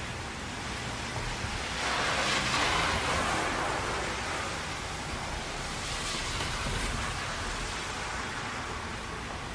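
Traffic on a rain-soaked highway: a steady hiss of rain and tyre spray over a low engine rumble. The hiss swells briefly about two seconds in, and again more faintly around six seconds.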